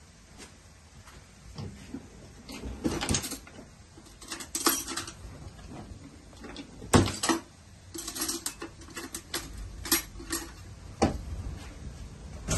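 Irregular kitchen handling noises: short clicks, taps and brief scrapes, a few of them sharp and loud, with a spoon scooping from a serving bowl near the end.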